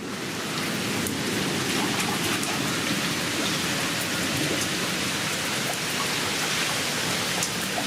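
Steady rain falling, with single drops ticking sharply through it; it gets louder right at the start and then holds steady.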